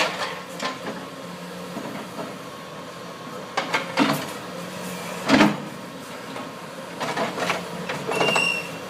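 Excavator's diesel engine running steadily while it tears at a bridge, with a few sharp metal knocks and clanks, the loudest about five seconds in, and a brief high squeal near the end.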